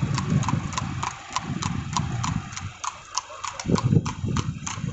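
Horse's shod hooves clip-clopping on asphalt as it pulls a two-wheeled cart, a steady rhythm of about four hoofbeats a second over a low rumble.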